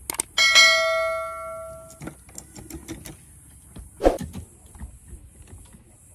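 A single bright metallic ring, set off by a sharp strike and fading for about a second and a half before it is cut off short, followed by a few light clicks and knocks.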